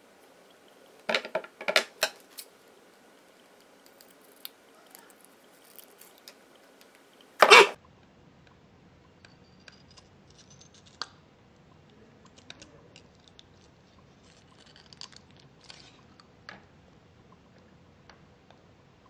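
Scissor blades cutting into a rubbery, liquid-filled squishy ball: a quick run of sharp snips about a second in, one loud cut about seven and a half seconds in, then faint scattered clicks of the blades and handling.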